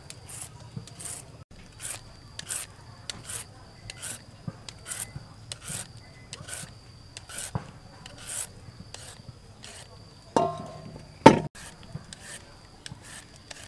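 A hand julienne peeler scrapes strips off a raw carrot and then a white radish, about two rasping strokes a second. Near the end there is a louder clatter and a sharp knock.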